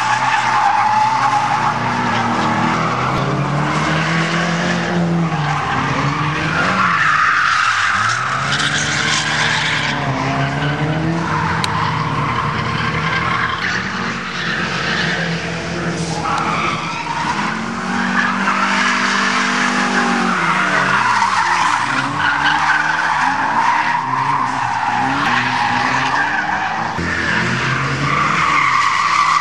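Cars drifting: engines revving hard, their pitch swooping up and down again and again, over continuous squealing of tyres sliding sideways on asphalt.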